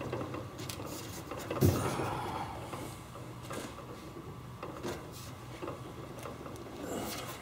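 Knocks, thumps and scrapes of someone climbing out of a Sonex homebuilt aircraft's bare aluminium cockpit, hands and body pressing on the sheet-aluminium fuselage skin. One heavier thump comes about a second and a half in, with lighter knocks after it.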